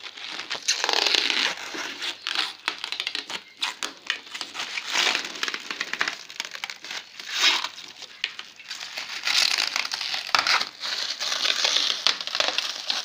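Clear plastic wrap crinkling and rustling as it is pulled off a glossy furniture panel and bunched in the hands, in irregular swells of crackle.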